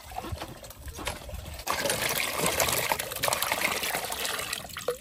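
Water pouring into a pot to boil chicken: a steady gush that starts about a second and a half in and stops just before the end, after a few light knocks.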